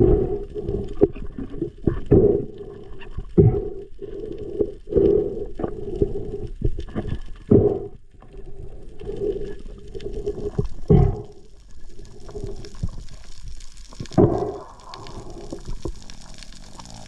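Muffled underwater sound of moving water and bubbling, with irregular gushes and thumps every second or two.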